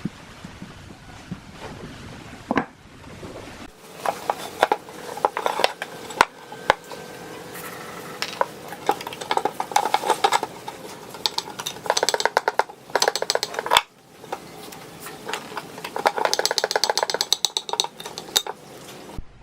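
Metal clinking and scraping of tools on metal parts, with several runs of rapid, closely spaced clicks.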